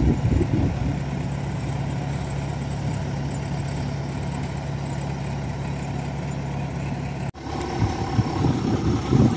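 Kubota DC-105X combine harvester's diesel engine running steadily at constant speed, a low, even hum. After an abrupt cut about seven seconds in, the machine noise turns rougher and more uneven.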